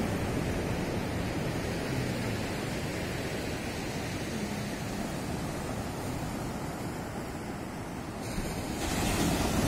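Sea surf breaking and washing up a sandy beach, a steady rush of noise that swells louder near the end.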